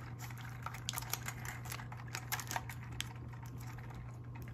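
Scotch tape being wrapped tightly around a plastic drone arm by hand: faint, irregular little clicks and crackles of tape and plastic being handled, over a faint steady low hum.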